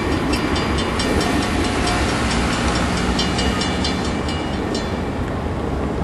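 Grade-crossing warning bell ringing in quick repeated strikes, about three to four a second, over the low rumble of a freight train. The bell fades near the end as the gates go up.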